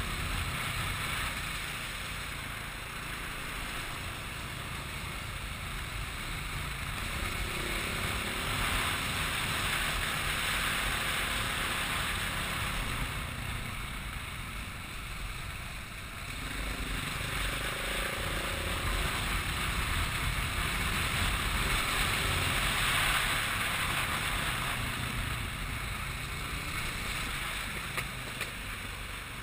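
A running vehicle engine under steady wind noise, swelling louder twice.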